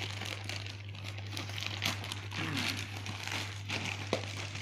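Plastic courier mailer bag crinkling and rustling in the hands as it is torn open and a cardboard box is pulled out of it, over a steady low hum.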